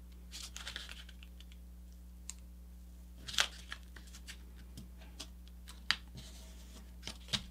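A sheet of paper being folded and creased by hand: soft rustling and scattered small crisp crackles as fingers press the fold flat. A few sharper crackles come about three and a half seconds in, near six seconds, and again near the end.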